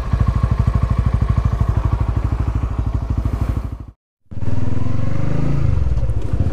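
Honda Winner X's 150 cc single-cylinder engine idling, heard close up as a steady rapid pulse; the owner finds it fairly smooth on Motul 5100 10W-30 oil, with a ticking that he takes for normal injector noise. It cuts off about four seconds in, and the same bike's engine is then heard running from the rider's seat as it pulls away.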